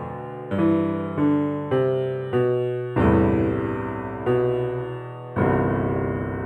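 Keyboard playing a slow series of struck chords, about seven in all, each dying away before the next. The last chord comes near the end and is left to ring out.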